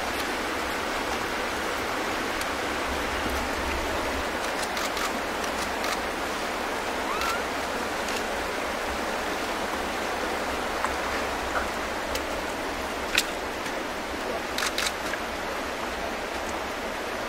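Steady rush of flowing water, with a few short clicks in the second half.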